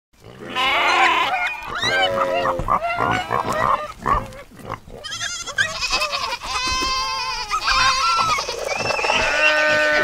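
A run of varied animal calls, one after another with hardly a break, starting about half a second in and turning higher-pitched and wavering from about five seconds in.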